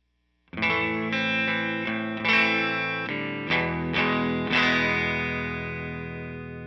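Electric guitar strumming a short run of about eight chords with a clean tone through the Demo Tape Fuzz pedal while the pedal is switched off. The last chord rings out and slowly fades over the final two seconds.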